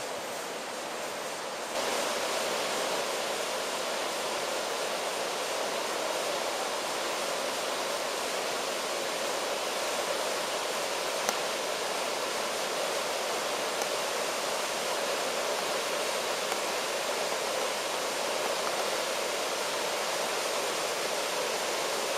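Waterfall: a steady rush of falling water, becoming louder and fuller about two seconds in.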